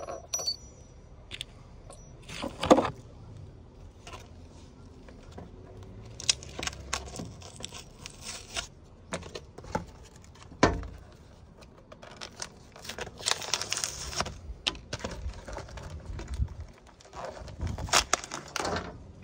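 Metal clinks, knocks and scrapes of gearbox parts being handled and fitted in the open crankcase half of a Suzuki RM85 two-stroke engine, with a sharper knock about three seconds in and another about ten seconds in.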